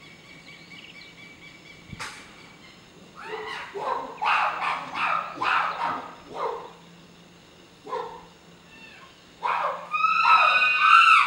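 A sharp knock about two seconds in, then a chimpanzee calling loudly in repeated bursts. The calls turn into longer, high held screams near the end.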